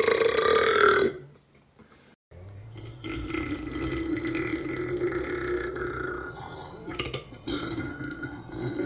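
Deliberate burps: one ends about a second in, then after a short silence a long, drawn-out burp holds a steady pitch for about five seconds, and another starts near the end.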